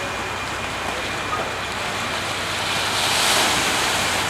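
Steady rushing of wind and surf, swelling briefly about three seconds in.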